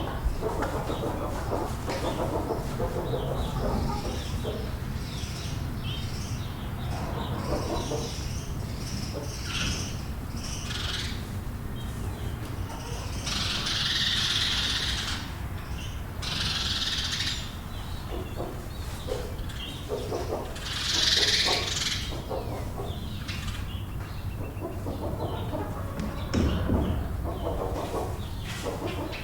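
Chickens clucking and calling inside a barn over a steady low hum. Three louder rustling rushes come a little past the middle, like wings flapping.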